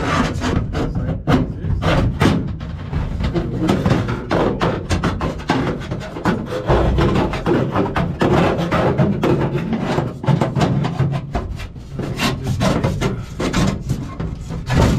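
Flat aluminium reinforcement strip being slid and worked into place inside an aircraft wing bay, scraping and clattering against the ribs and spar in a steady run of rubs and knocks.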